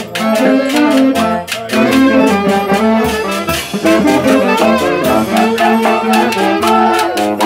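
A live Andean orquesta playing: saxophones carrying the melody with violin and harp, over a steady drum-and-cymbal beat.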